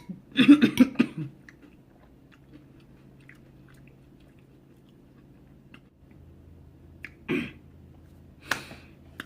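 A woman coughing: a quick run of several coughs about half a second in, then two single coughs near the end. Faint mouth and chewing clicks come in between.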